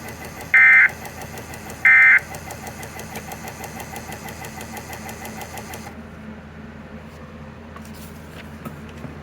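Weather radio sounding the last two short bursts of the Emergency Alert System End-of-Message data tone, each about a third of a second and about a second apart, signalling that the alert message has ended. Radio hiss follows and cuts off abruptly about six seconds in, with a couple of faint clicks near the end.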